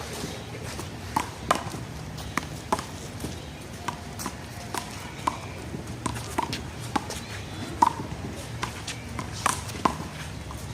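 A one-wall handball rally: the small rubber ball smacking off players' hands and the wall in a quick, irregular series of sharp slaps, the loudest a little before the eighth second.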